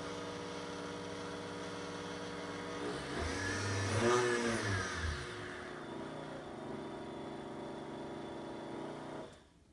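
Vitamix Venturist V1200 blender motor running on a timed program. It runs as a steady whine, swells and shifts in pitch about three to five seconds in, then settles and cuts off just before the end as the timer runs out.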